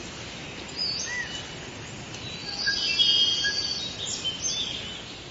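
Lovebirds chirping: scattered short, high chirps and whistles over a steady background hiss, busiest around the middle.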